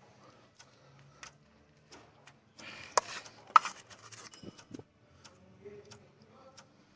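Scattered light clicks and taps with a short scraping rustle about three seconds in: hands and test probes handled at the engine's ground terminal.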